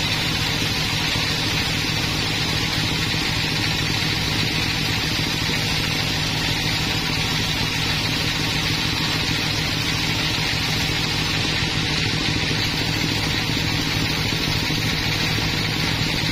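Band sawmill running steadily, its blade cutting through a large log: a constant low machine hum under a steady hissing rasp of the blade in the wood.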